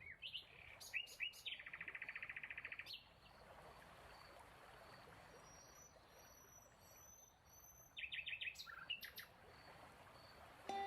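Small songbirds chirping: short calls, a rapid trill of about a dozen notes, faint high whistles and another burst of chirps near the end. A plucked harp note comes in at the very end.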